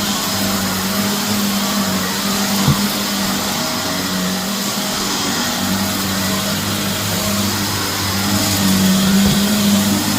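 Shark vacuum cleaner running steadily on a heavily soiled carpet, its motor humming under a broad rushing suction noise. Two short sharp clicks, about three seconds in and near the end, are debris being sucked up.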